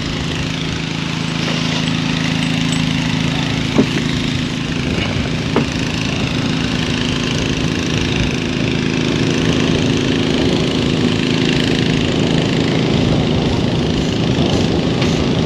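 A motor running steadily, a continuous low hum, with two brief knocks about four and five and a half seconds in.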